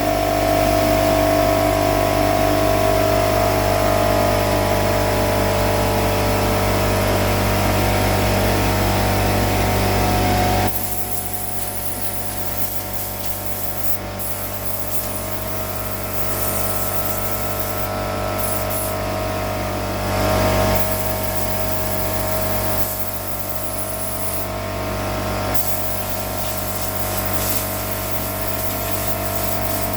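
Compressed air blowing sawdust off: a steady rushing hiss over a machine hum, which drops in level abruptly about ten seconds in.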